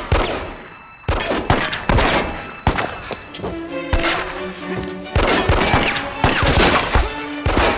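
A film shootout soundtrack: a string of gunshots fired at uneven intervals, a dozen or so over several seconds, with music playing underneath.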